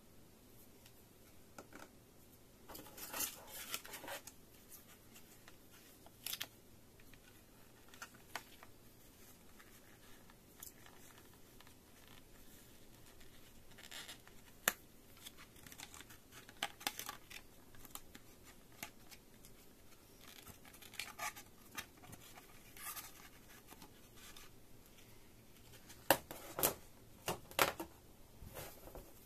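Clear plastic packaging and earphone parts handled by gloved hands: scattered soft clicks, taps and plastic crinkling, with a quick run of sharper clicks near the end as the parts are set down on the table.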